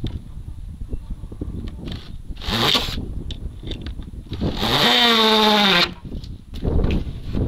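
Power drill driving screws into a wooden door brace: a short spin-up rising in pitch about two and a half seconds in, then a louder run of over a second near the five-second mark, its pitch dropping slightly before it stops.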